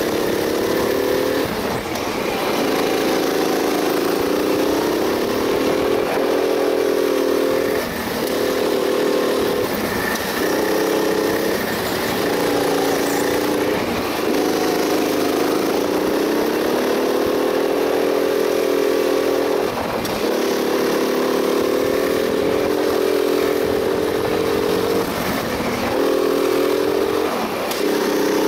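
Go-kart engine heard from the driver's seat, running hard, its pitch rising and falling as the kart speeds along the straights. It drops out briefly about a dozen times as the throttle is lifted for the corners, then picks up again.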